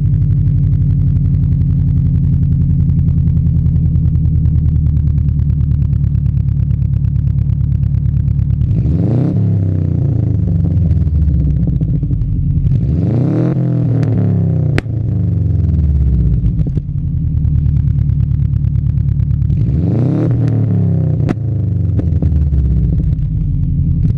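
Subaru Legacy Turbo's turbocharged flat-four engine heard at the tailpipe: idling steadily, then revved three times, each rev rising and dropping back to idle, with another rev starting right at the end.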